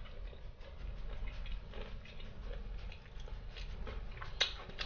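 A person chewing a mouthful of fried chicken: soft, irregular wet mouth clicks and smacks, with one sharper click near the end.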